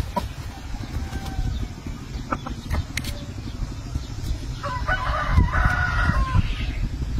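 A rooster crows once, a single call of nearly two seconds about two thirds of the way in, over a steady low rumble.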